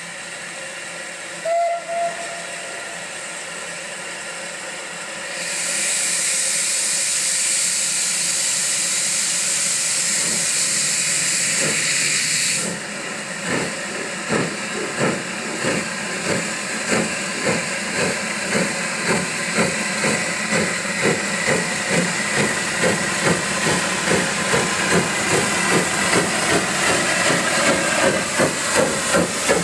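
Steam locomotive, the L&YR Class 27 0-6-0 No. 52322, starting away. Two short whistle toots, then a loud hiss of steam for about seven seconds that stops suddenly. Exhaust beats follow, slow at first and quickening steadily to about two a second.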